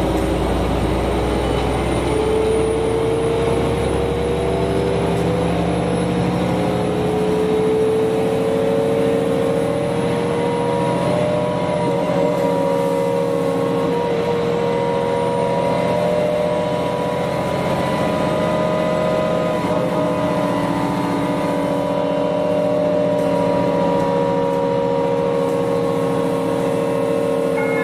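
Karosa B951E city bus heard from inside, its engine and Voith four-speed automatic gearbox running on the move with a steady whine. The pitch climbs gently over the first several seconds as the bus gathers speed, then holds.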